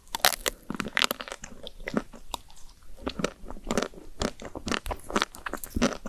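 Crunchy cookies being bitten and chewed close to the microphone: a dense run of sharp, irregular crackles.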